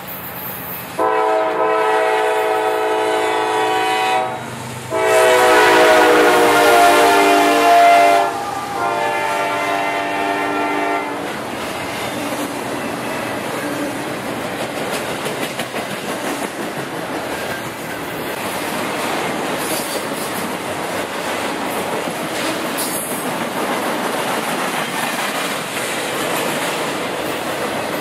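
A CSX diesel freight locomotive's multi-chime air horn sounds three blasts, the second dropping in pitch as the locomotive passes. Then the double-stack intermodal train rolls by with a steady rumble and clatter of wheels on rail.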